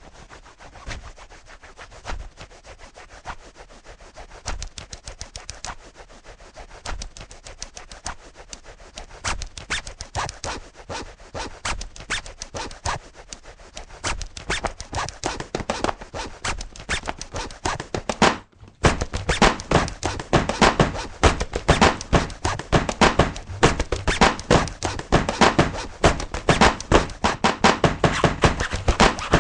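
Rapid, dense clicking and tapping, many strokes a second. It breaks off for a moment about two-thirds of the way through, then comes back louder and denser.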